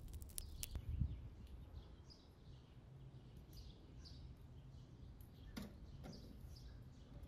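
Small birds chirping faintly now and then over a quiet background. A wood fire crackles for the first moment, a low thump comes about a second in, and an aluminium teapot clinks twice a little past the middle as it is lifted off the iron grate and set down on the stone.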